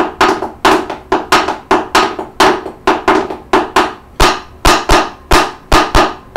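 Wooden sticks drumming a steady beat on the floor, about four strikes a second. About two-thirds of the way through, deeper thuds join in on alternate beats.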